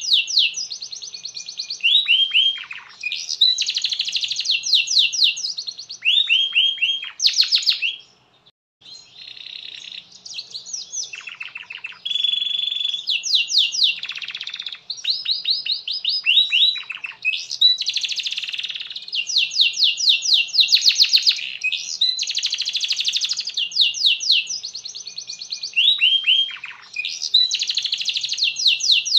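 Domestic canary singing a long, vigorous song: phrases of rapid trills and rolls of fast repeated notes, alternating with runs of downward-sliding notes, broken by one short pause about eight seconds in.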